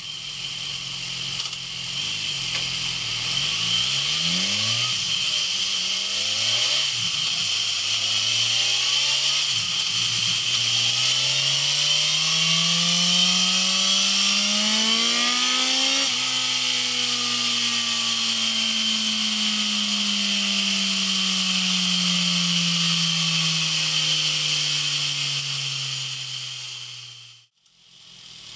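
BMW S1000XR's inline-four engine through its exhaust, accelerating hard with the pitch climbing in repeated rising sweeps as it goes up through the gears, then falling slowly and evenly for about ten seconds as it slows, over a steady hiss. It cuts off abruptly near the end.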